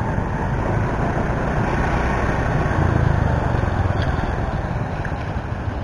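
Motor scooter being ridden: steady engine hum with road and wind noise, a little louder about three seconds in.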